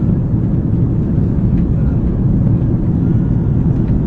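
Airliner cabin noise: the engines and rushing air heard from inside the plane as a steady low rumble.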